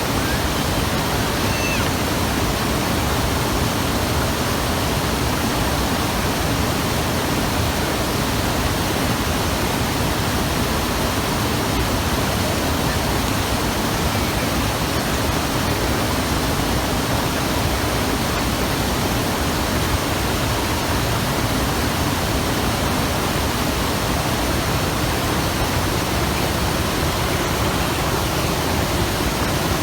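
The Hayakawa river flowing fast: a steady, even rush of water.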